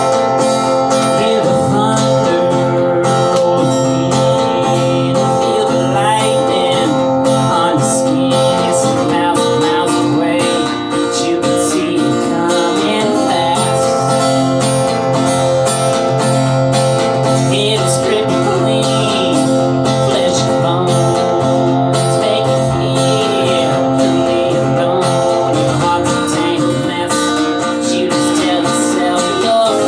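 Guitar strumming steady chords, the instrumental opening of a solo performer's original song.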